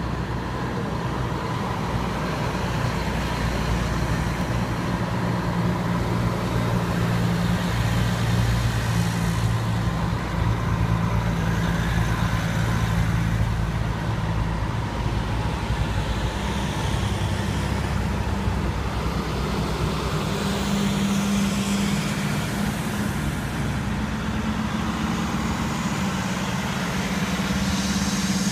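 Fire trucks driving past one after another in a slow procession, their diesel engines running with a steady low drone over tyre noise.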